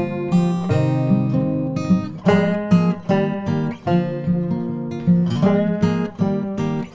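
Background music: acoustic guitar picking a lively tune over a steady alternating bass line.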